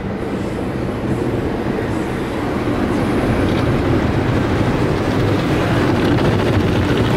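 Automatic car wash brushes and water spray working over the car, heard from inside the cabin: a steady, dense rumbling wash that grows a little louder about two and a half seconds in.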